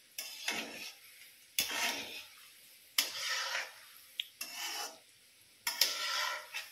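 A perforated metal skimmer scraping and rubbing against an iron kadhai as gulab jamun balls are stirred in hot ghee. There are about five rasping strokes, each about half a second long, spaced a little over a second apart.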